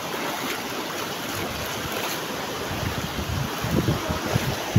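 Shallow surf washing steadily over a flat, algae-covered rock shore, with wind buffeting the microphone in low rumbles that grow stronger toward the end.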